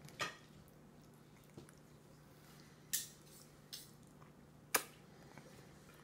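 A toddler eating macaroni by hand from a plastic bowl: a few brief, soft clicks and taps of fingers and food against the bowl and of her mouth while she eats, in a quiet room.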